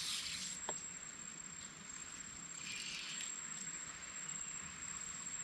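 Steady high-pitched insect whine over a soft hiss, with two brief rustles, one right at the start and one about three seconds in.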